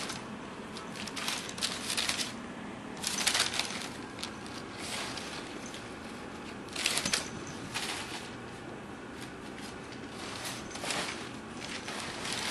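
Crumpled brown packing paper crinkling and rustling in irregular bursts as kittens pounce on it and scramble through it, the loudest bursts a little after three seconds in and about seven seconds in.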